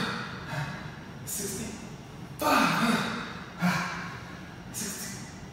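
A man breathing hard under exertion while doing fast dumbbell bicep curls, with a sharp, forceful exhale about once a second, roughly in time with each rep; the loudest comes about halfway through.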